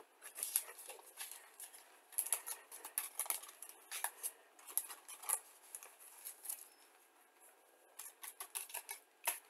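Paper rustling and crinkling as a model kit's decal sheet and its thin tissue cover sheet are handled: a string of short, crisp crackles, easing off for a couple of seconds about two-thirds of the way in before a last cluster near the end.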